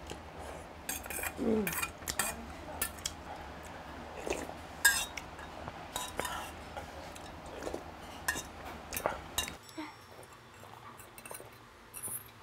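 Stainless-steel spoon clinking and scraping against a stainless-steel bowl in a run of irregular sharp clinks, with slurps of spicy beef soup broth in between.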